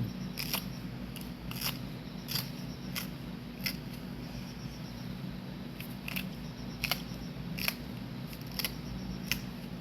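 Crisp cucumber peppers being cut into pieces: a short, sharp cut roughly every 0.7 s, over a steady low hum.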